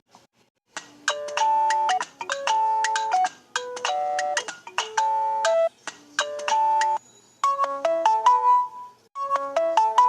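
Samsung Galaxy J2 ringtone from the Viper OS custom ROM playing. It starts about a second in as a short melodic tune of held electronic notes, repeated in phrases of about a second each.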